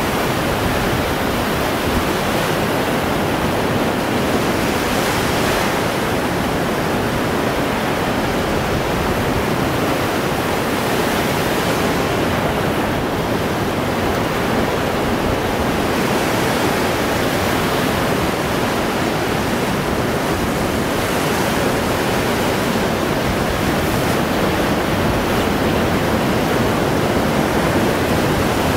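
Baltic Sea surf: waves breaking close to shore and washing around a post, a steady rush of water with no pause.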